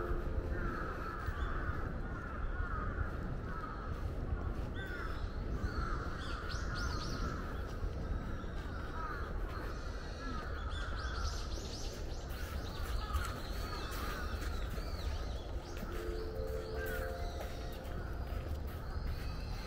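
Crows cawing over and over, with higher bird chirps in a couple of spells, over a steady low rumble.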